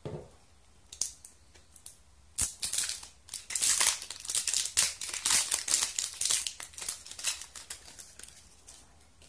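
Metal reel-seat lock rings on a telescopic fishing rod being turned by hand along their threads: a couple of separate clicks, then a quick run of scratchy clicking and scraping through the middle that thins out near the end.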